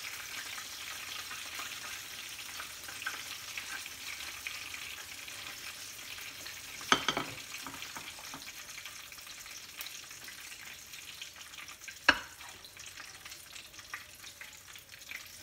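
Sliced onions sizzling in a small pan of oil, soy sauce and kalamansi over a gas flame, a steady crackling hiss. Utensils clack sharply against a plate twice, about seven seconds in and again near twelve seconds.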